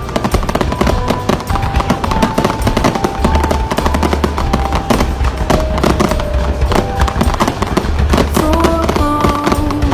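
Fireworks going off in a rapid, dense string of bangs and crackles, with music playing a melody of long held notes.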